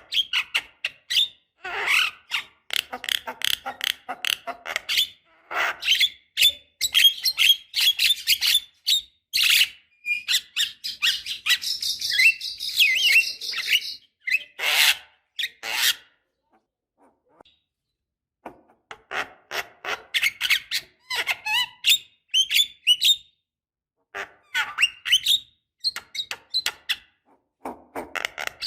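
Javan myna calling: runs of harsh, rasping chatter and squawks in quick succession. A pause of a couple of seconds falls a little past the middle, then the calling resumes.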